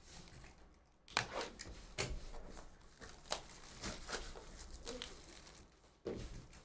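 Plastic shrink wrap being torn and crinkled off a sealed trading-card box: a run of short rips and crackles for several seconds.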